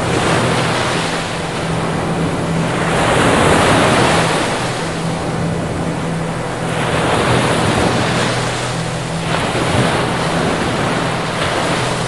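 Ocean surf breaking, with waves that swell and fall away every few seconds; the loudest comes about three to four seconds in.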